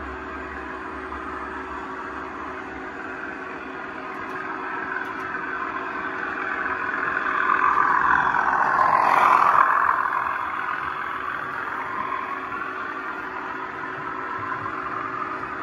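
Model railway with DCC sound: a steady locomotive hum, with the running noise of a model train that swells to its loudest about nine seconds in and then fades.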